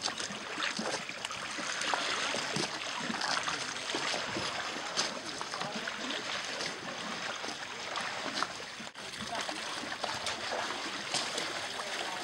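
Water splashing and sloshing, a constant churn of many small splashes, with people's voices faintly in the background.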